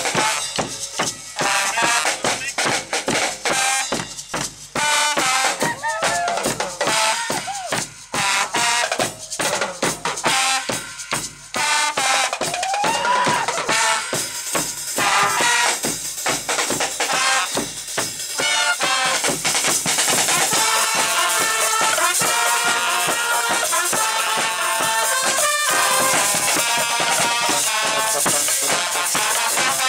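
Guggenmusik band playing loudly: trumpets, trombones and a sousaphone over drums and cymbals.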